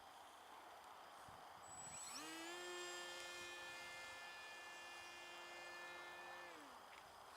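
Faint electric motor and propeller of an RC electric flying-wing glider running up to a steady whine about two seconds in, holding for roughly four and a half seconds, then winding down.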